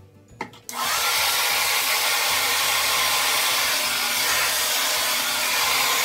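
Handheld hair dryer: a click, then the dryer starts under a second in and runs steadily with a loud, even rush of air, blow-drying wet hair over a round brush.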